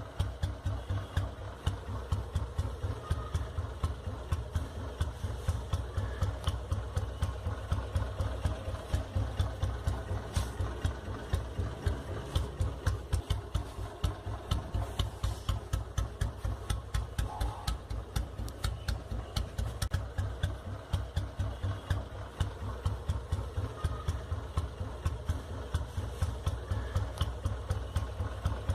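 Vintage Royal Enfield Bullet's single-cylinder four-stroke engine idling at low RPM, making a steady, even thump.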